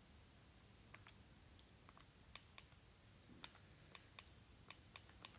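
Buttons on a handheld graphing calculator being pressed: about ten light, sharp clicks at uneven spacing, starting about a second in.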